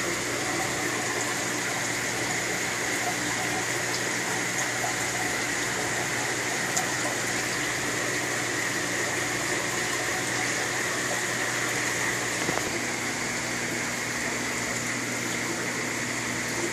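Steady running-water and pump noise from aquarium filtration and aeration, with a low electric hum underneath.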